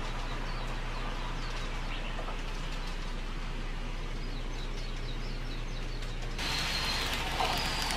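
Steady background hiss with a low hum, with faint short high chirps like small birds scattered through it. The sound gets louder and the chirps clearer a little over six seconds in.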